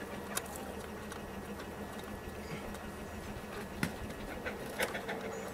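A few faint, sharp clicks of a small flathead screwdriver working the screw clamps of an STC-1000 digital temperature controller, tightening down the power-supply wires, over a steady low background hum.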